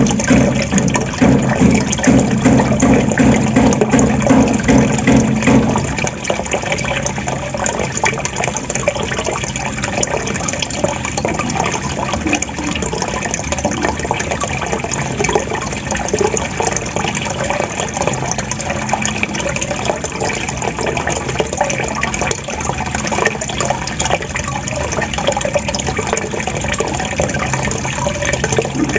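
Water trickling and gurgling without a break. It is louder and deeper for the first six seconds or so, then settles to a softer, lighter trickle.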